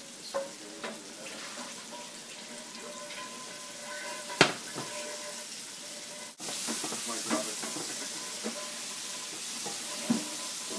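Banana slices sizzling in butter in a cast iron skillet, with scattered knocks and scrapes of a spatula stirring them. One sharp knock about four seconds in is the loudest sound, and the sizzle cuts out for an instant about six seconds in and comes back louder.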